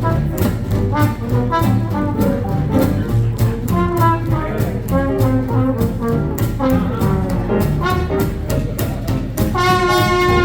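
Live hot jazz swing band playing an instrumental chorus with no vocals: a lead melody moves over a steady swing beat and rhythm section, holding one long note near the end.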